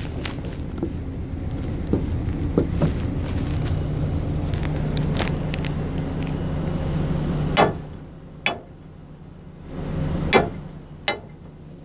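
An engine runs with a steady low drone that drops in level about two-thirds of the way through, followed by four sharp clanks.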